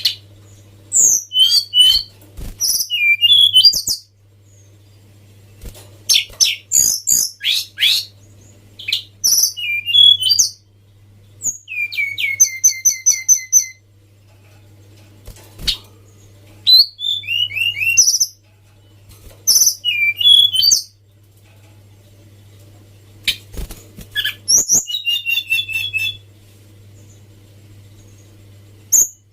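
Tledekan gunung (Sunda robin) singing: a string of short, varied phrases of high whistled notes and fast trills, each a second or two long with brief pauses between, over a faint low steady hum.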